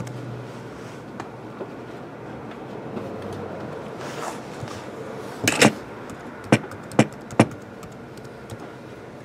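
Typing on a computer keyboard: faint key clicks scattered through the second half, with four louder sharp clicks, the first a double, about halfway through.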